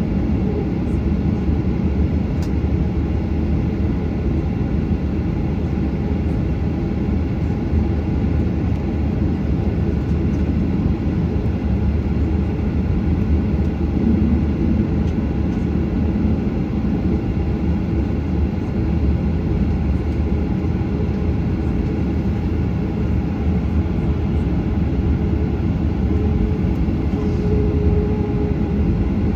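Boeing 737-800 cabin noise: a steady low rumble of jet engines and airflow, with no change in level or pitch.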